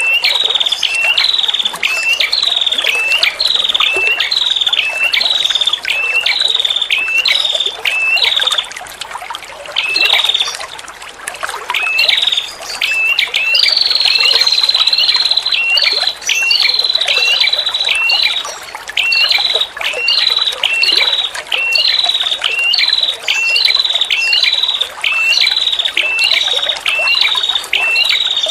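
Female prenjak kepala merah calling: a long run of short, sharp rising notes, about two a second, broken by a brief pause and a longer held note near the middle. Trickling water runs steadily underneath.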